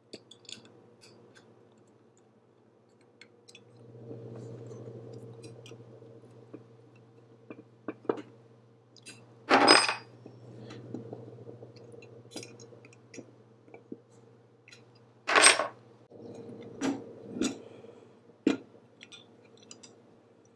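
Small metal hardware and hand tools handled on a wooden workbench: a screwdriver driving screws to fasten a metal handle bracket onto a metal box, with scattered light clicks and two loud metallic clinks, about ten and fifteen seconds in. A low steady hum runs underneath from about four seconds in until about sixteen.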